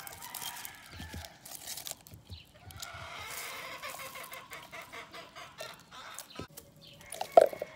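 Domestic chickens clucking, with one loud short call near the end, among scattered small clicks and rustles.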